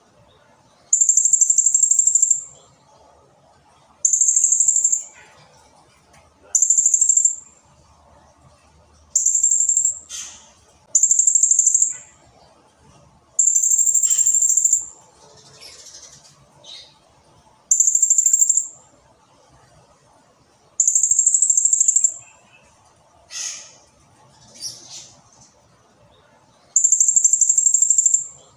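Blue-crowned hanging parrot (serindit) singing: about nine shrill, very high-pitched bursts of song, each a second or so long, with a few short downward-sweeping calls between them.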